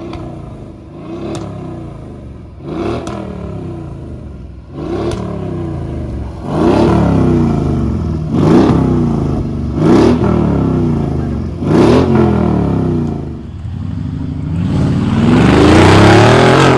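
Mercedes-AMG V8 through an aftermarket exhaust with the stock resonator replaced and two vacuum valves, revved in about seven short blips a second or two apart, each falling back. Near the end comes a longer, louder rev that climbs.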